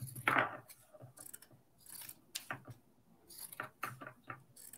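Scissors snipping through fleece to cut fringe: a run of irregular short snips and clicks, the loudest about a third of a second in.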